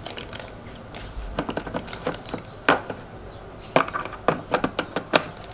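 Hard metal parts being handled: a run of sharp clicks and clinks, scattered at first and coming thick and fast in the last couple of seconds.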